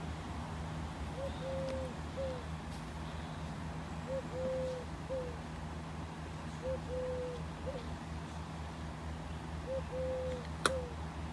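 A dove cooing a three-note phrase, short, long, short, repeated four times about every three seconds over a steady low hum. A single sharp click sounds near the end.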